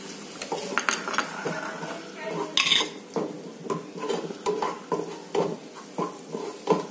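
Wooden spatula stirring and scraping a non-stick frying pan of vegetables coated in wet cornflour batter, with a soft sizzle from the pan. The strokes come about twice a second in the second half, with one louder stroke near the middle.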